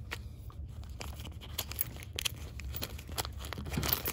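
Plastic zip bag rustling and crinkling as spare soldering-iron tips are handled, with scattered light clicks, over a steady low hum.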